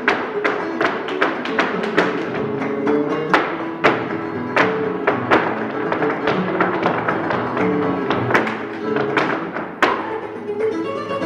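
Flamenco-style Spanish guitar music with sharp rhythmic strums, several a second, over sustained notes.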